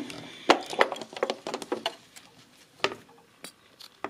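Scattered sharp clicks and taps as a home sewing machine and the fabric in it are handled once the stitching has stopped, irregularly spaced, with a cluster in the middle.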